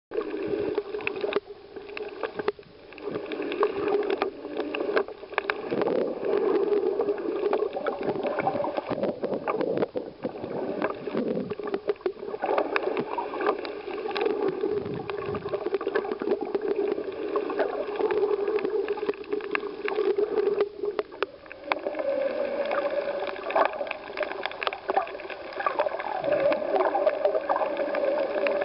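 Muffled underwater sound picked up by a submerged camera while snorkelling: steady water gurgling and sloshing with scattered clicks.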